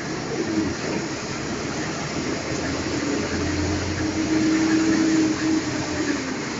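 Steady running noise heard from inside a moving vehicle, with an engine or motor hum that swells louder for a couple of seconds in the middle.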